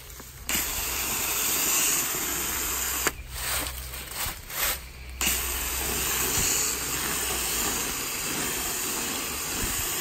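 Hose-end foam sprayer on a garden hose spraying foaming coil cleaner onto an air-conditioner condenser coil: a steady hissing spray that starts about half a second in. In the middle it breaks into a few short spurts for about two seconds, then runs steadily again.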